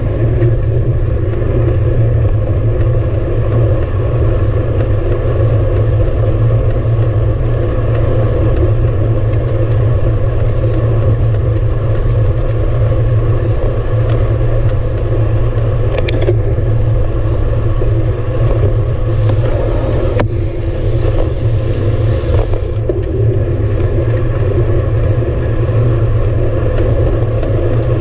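Steady wind rumble and tyre noise on a bicycle-mounted action camera as the road bike rolls along a smooth paved path. A higher hiss joins for about four seconds, roughly two-thirds of the way in.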